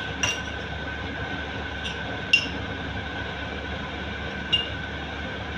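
A spoon clinks lightly against the cooking pot four times, short ringing taps, as a spoonful of black pepper goes into the mutton karahi. Under the taps runs a steady hiss with a thin steady whine.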